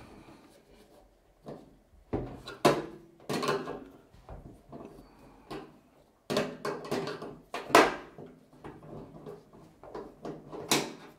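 A screwdriver prying and knocking at a knockout in a range hood's sheet-metal housing, working it loose: irregular scrapes and clicks with sharp metallic knocks, the loudest about a third of the way in, again past the middle and near the end.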